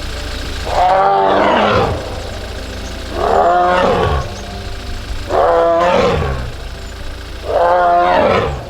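Amur tiger calling four times, each call about a second long and rising then falling in pitch, at roughly two-second intervals.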